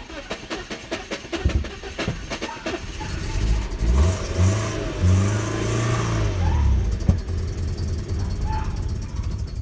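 BMW E46 engine cranking on the starter for about three seconds, then catching and revving up and back down under throttle before settling lower. This is a hard start: the engine only catches with the accelerator pressed.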